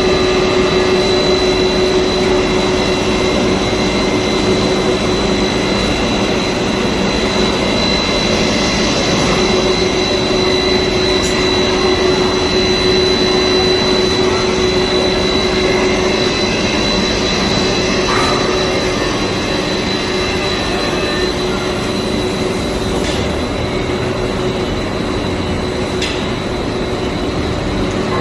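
PVC marble sheet extrusion line running: a loud, steady machine drone with several steady whines held over it.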